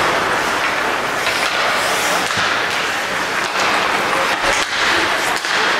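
Ice hockey play: skates scraping across the ice, with several sharp clacks of sticks and puck scattered through, over steady arena noise.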